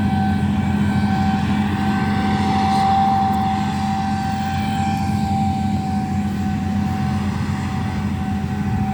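Heavy harvest machinery running steadily: a deep diesel drone with a steady whine over it, swelling slightly about three seconds in.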